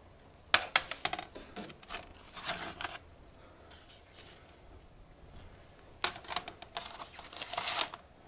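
Plastic CD jewel cases clicking and clattering as they are picked up and handled, in two bursts of quick clicks, about half a second in and again around six seconds in.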